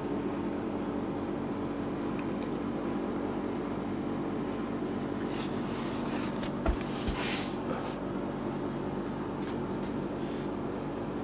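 Steady low hum of a small electric fan running, with a few brief rustles and a soft bump a little past the middle.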